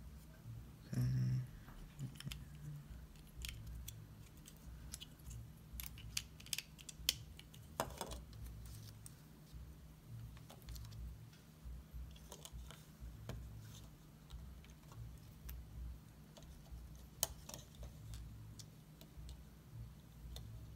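LEGO plastic bricks being handled and pressed together: scattered small clicks and rattles, with a brief louder sound about a second in.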